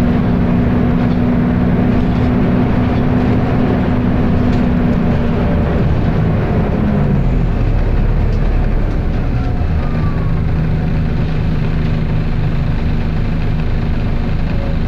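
Volvo B10BLE bus's diesel engine running under a very loud cooling fan: a heavy, steady rush of noise with an engine hum beneath. About six seconds in the hum falls in pitch, then settles lower.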